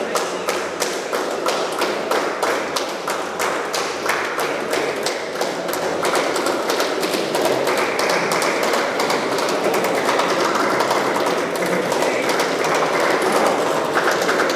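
Rapid, even tapping, about four to five beats a second, over the noise of a crowd talking in a large hall. The tapping fades about six seconds in while the crowd noise grows slightly louder.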